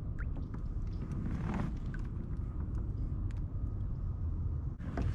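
Wind rumbling on the microphone while a hooked fish is reeled in to the kayak, with faint scattered clicks. Near the end there is a burst of splashing as the fish thrashes at the surface beside the boat.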